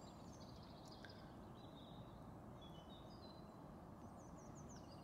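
Faint birdsong over quiet outdoor background hiss: several short, high chirping phrases from small songbirds, scattered through the few seconds.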